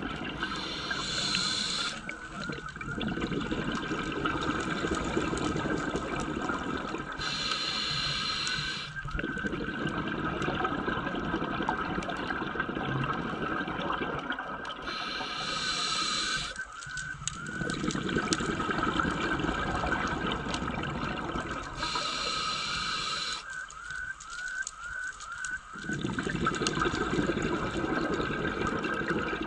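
Scuba diver breathing through a regulator underwater: exhaled bubbles rush out in bursts about every seven seconds, four times, with steady underwater noise between the breaths.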